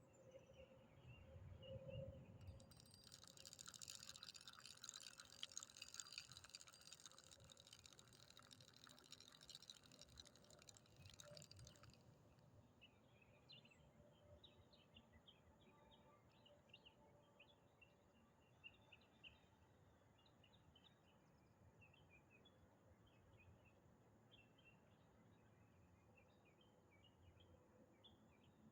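Faint outdoor ambience with small birds chirping. A dense, high-pitched chirring fills the first ten seconds or so, then gives way to scattered short chirps.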